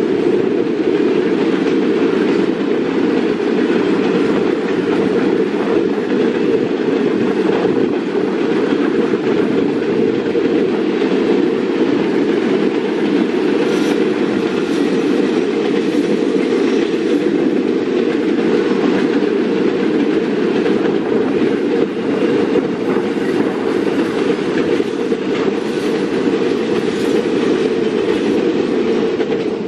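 Container wagons of a freight train rolling past, with a steady rumble and the wheels clicking over the rail joints.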